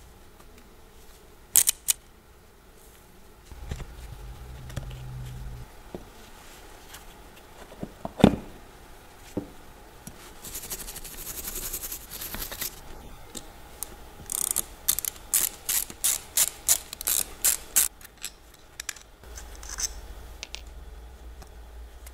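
A car starter motor being taken apart by hand: metal clicks and knocks as the parts are handled, a short scraping stretch, then a quick even run of ratchet clicks, about three or four a second, from a ratcheting tool turning out the housing screws.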